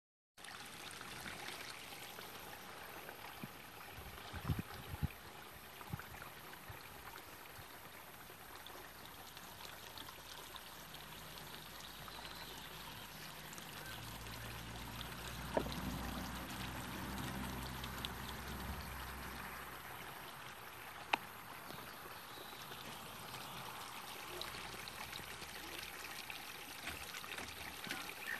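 Outdoor garden ambience: a steady noisy hiss, with a few sharp knocks about four to five seconds in and twice more later, and a low hum that swells in the middle and fades away.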